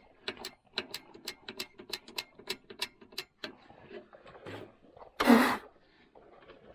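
Portable propane heater's igniter clicking rapidly, about four or five clicks a second for three or so seconds, as it is tried for a light. About five seconds in comes one short, loud rush of noise.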